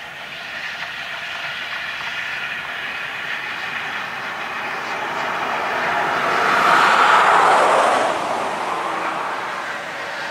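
W-class 4-8-2 steam locomotive W 945 passing with its train: a steady rattle and rumble of wheels on the rails. It swells to its loudest about seven seconds in and then eases.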